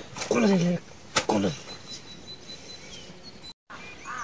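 Livestock bleating twice, two short calls that fall in pitch, the second coming about a second after the first.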